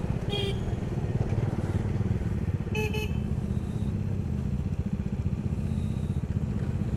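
Motorcycle engine running steadily while riding. A vehicle horn gives a short toot about half a second in and another around three seconds in.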